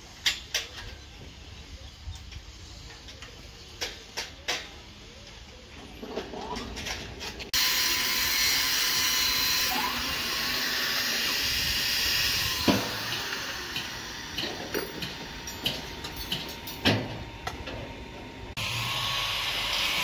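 Handheld angle grinder cutting a steel angle bar: a loud, steady grinding hiss with a faint whine that starts abruptly partway in. Before it there are a few scattered metal knocks.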